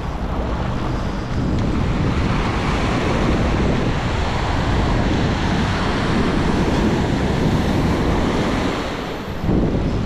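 Ocean surf breaking and washing in over the sand, with wind noise on the microphone. The wash swells about a second and a half in and surges again near the end.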